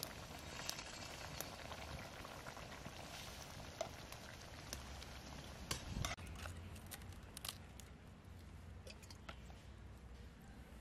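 Fish curry simmering in a metal pot over a wood fire: a faint, steady bubbling hiss with scattered small crackles. About six seconds in, a brief clatter as the pot is stirred.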